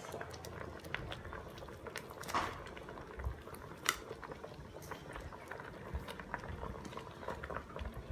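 Liquid bubbling at a boil, with many small pops and a sharp click about four seconds in.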